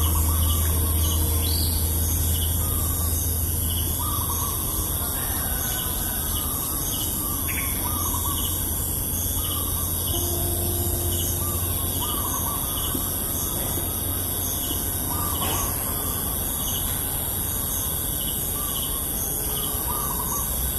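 Rural morning ambience: birds calling in short repeated phrases every second or two over a steady high hiss, with a low hum that eases off about halfway through.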